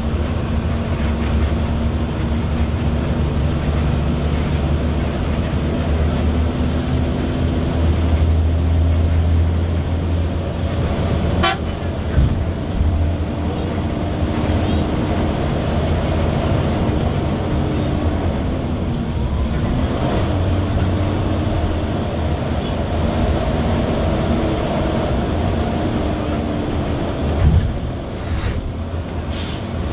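Motor vehicle traffic: a steady engine drone with road noise, the engine note dipping briefly about two-thirds of the way through, and a sharp click and a thump along the way.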